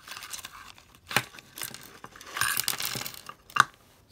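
Small parts of an electronics kit clattering out of a plastic bag onto a wooden tabletop: two sharp clinks, about a second in and near the end, with the plastic bag crinkling between them.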